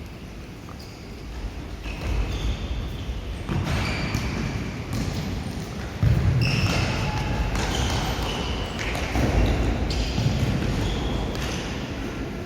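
Futsal play in a gym: the ball thudding off feet and floor, with short high squeaks of shoes on the court. A sharp, loud thud about six seconds in, likely a hard kick.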